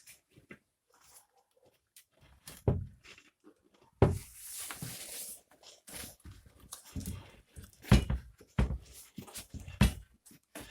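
Hand-handling noise from a rubber motorcycle tire and inner tube being worked onto the rim. There are a few faint clicks, then about four seconds in a second of scraping rub, followed by a run of irregular knocks and thumps.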